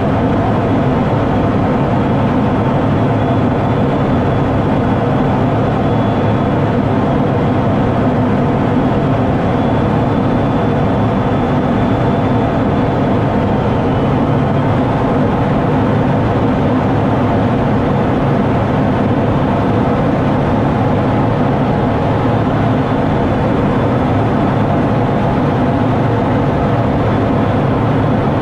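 Steady cockpit noise inside an F-16 fighter in flight: jet engine and rushing air, with a faint high whine that dips briefly about halfway through.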